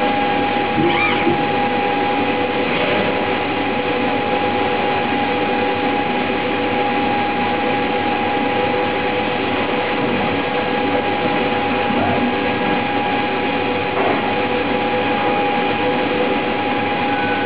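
Steady machinery hum with several constant whining tones, unchanging throughout.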